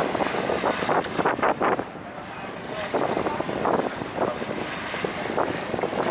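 Wind buffeting the microphone on the deck of a Star Ferry crossing the harbour, over the wash of water along the hull, with a dip in the wind about two seconds in.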